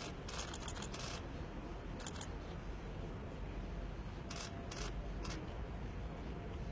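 Press cameras firing their shutters in several short rapid bursts, most of them in the first second and again about four to five seconds in, over a low steady rumble.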